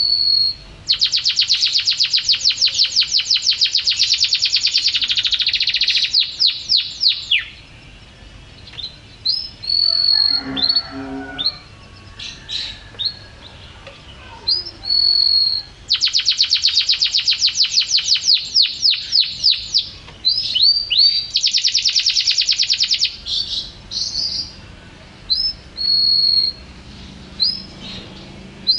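Domestic canary singing: long, rapid trills of quickly repeated notes, broken up by short clear whistled notes. Two long trilled phrases, the second starting about halfway through.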